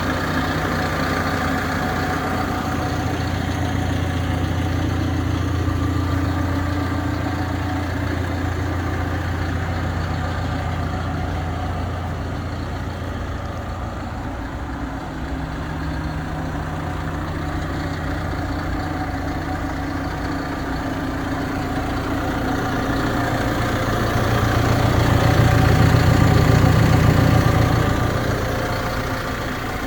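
Hidromek HMK 102B Supra backhoe loader's diesel engine running steadily, growing louder for a few seconds near the end before settling back.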